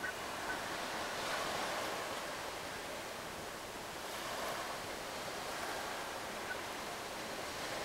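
Sea water washing and lapping, with wind, as a steady hiss that swells and eases gently every few seconds.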